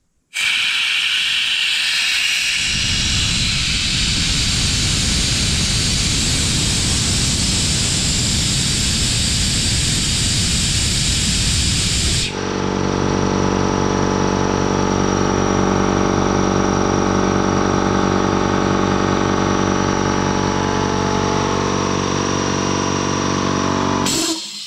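Compressed air hissing out of a Clarke 110-litre compressor tank through its opened valve as the pressure is let down. About twelve seconds in, the pressure switch cuts the electric motor and belt-driven piston pump back in, and they run steadily. Near the end the sound drops to a lower level.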